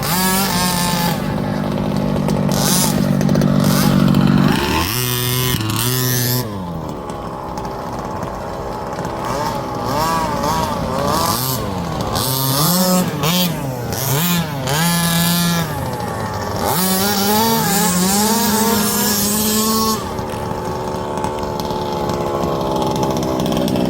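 Small two-stroke petrol engines of 1/5-scale RC buggies, revving up and down as they are driven, with short spells at a steady pitch.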